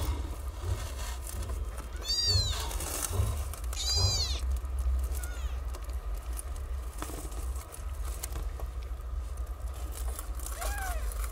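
Very young kittens mewing while nursing: two high-pitched mews that rise then fall, about two and four seconds in, a fainter one shortly after, and a lower call near the end.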